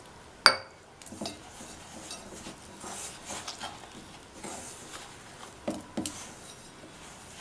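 Hands mixing crumbly wheat flour and mint paste into chapati dough in a stainless steel bowl: irregular rubbing and scraping of flour against the steel. A sharp metallic clink rings out about half a second in, with a couple of smaller ticks near the end.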